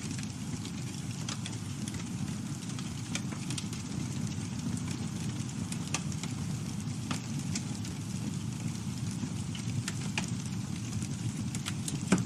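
Campfire burning with a steady low rumble and scattered sharp crackles and pops, one louder pop near the end.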